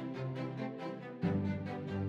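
Background music with a quick, steady beat over held notes; the bass line changes about a second in.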